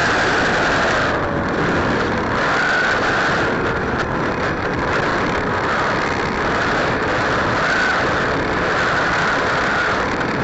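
Electric motor and spinning propeller of an E-flite Apprentice RC trainer plane, recorded by a camera on the plane itself: a steady motor whine that swells and fades a little over loud rushing air noise.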